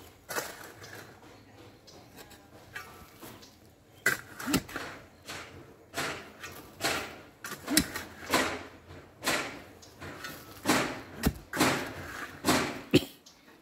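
A long-handled digging tool striking hard, stony soil at the bottom of a pit: short, sharp blows about once a second, beginning about four seconds in, some landing with a dull thud.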